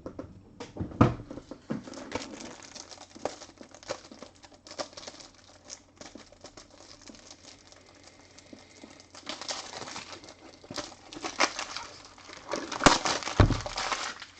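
Trading cards and their packaging being handled: crinkling, rustling and light taps, with busier rustling about nine seconds in and a sharp knock near the end.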